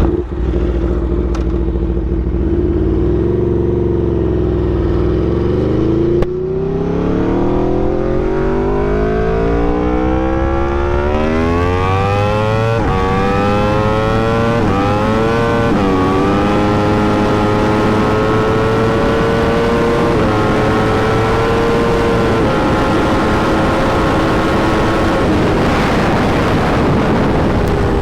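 Aprilia RSV4's V4 engine accelerating hard, revs climbing steadily with sharp drops at the gear changes, then held high with small dips while wind rushes. The revs fall away near the end. The rider thinks the clutch is slipping.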